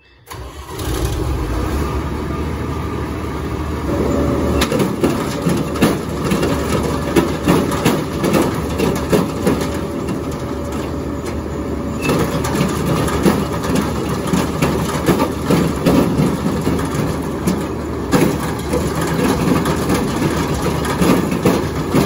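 Gleaner combine running with its grain header engaged, the reel and cutter bar turning with a loud, dense clanking and knocking. It is a really bad noise, caused by a drive chain that was not on correctly. The sound starts about half a second in and gets louder about four seconds in.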